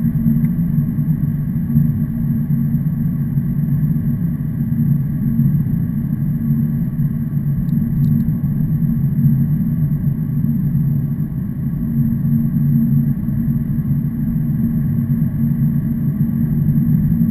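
Truck engine running steadily: a low, even drone that holds level throughout.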